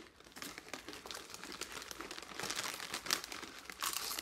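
Crinkling of a chip bag being handled, an irregular crackle with louder rustling around the middle and again near the end.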